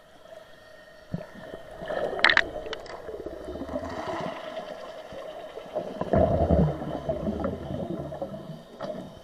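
Water gurgling and bubbling in uneven surges over a steady hum. The surges are loudest about two seconds in and again around six seconds, with a sharp click a little after the first one.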